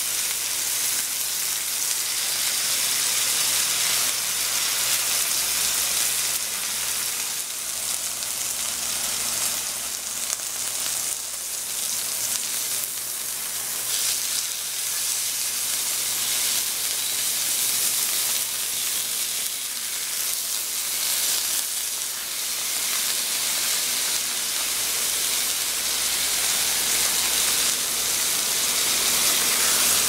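Beef steaks frying in hot oil in a nonstick frying pan: a steady, high sizzling hiss.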